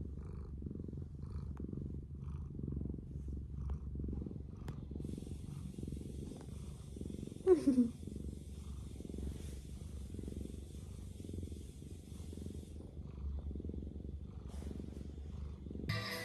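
Domestic cat purring close to the microphone, a steady low purr swelling and fading about twice a second with its breathing. About halfway through, a short falling tone stands out as the loudest sound.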